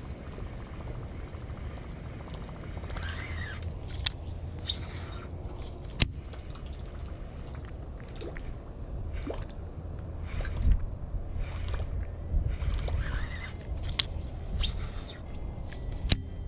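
Wind rumbling on the microphone over light watery splashing, with two sharp clicks about six seconds in and near the end, from casting a topwater lure and working it back across the pond.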